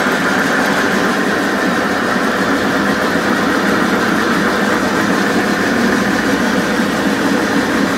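Dynamic crankshaft balancing machine running at speed, spinning a crankshaft assembly with its front pulley fitted through a universal-joint drive shaft. A steady mechanical running sound while the machine measures how far out of balance the pulley is.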